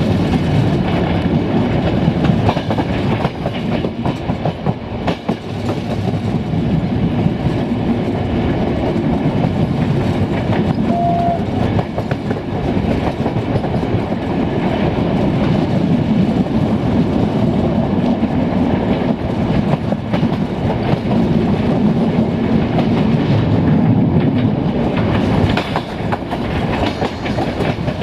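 Passenger train coach running at speed, its steel wheels clicking rhythmically over the rail joints under a steady rolling rumble.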